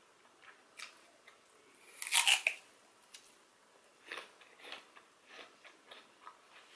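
A crisp apple bitten with one loud crunch about two seconds in, then chewed with a run of smaller crunches.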